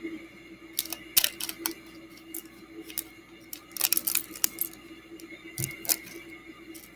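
Small plastic Lego pieces clicking and rattling as they are sorted through by hand, in clusters about a second in and again about four seconds in, over a steady low hum.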